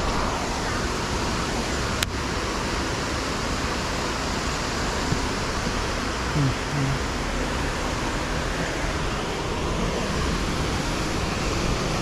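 Water rushing steadily over a dam, an even wash of noise, with one sharp click about two seconds in.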